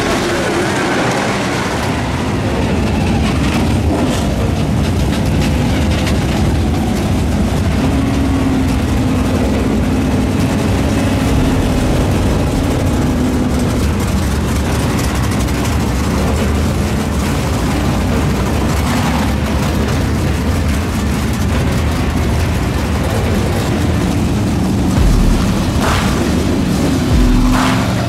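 Engines of a field of dirt-track race cars, late models and then modifieds, running together as a steady, loud, dense engine noise. A few low thumps come near the end.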